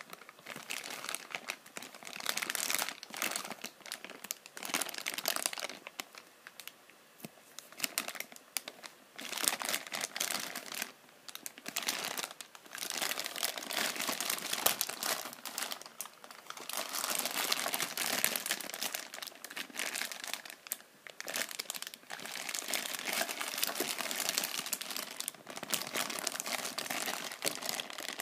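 Clear plastic bag crinkling and crackling in the hands as the figure sealed inside it is turned over, in irregular rustles with louder stretches through the middle.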